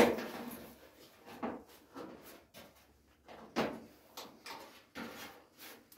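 Steel front wing panel and clamps being handled against the car body as the wing is eased into position: a loud knock right at the start, then a string of short metallic scrapes and clunks, the loudest a little past halfway.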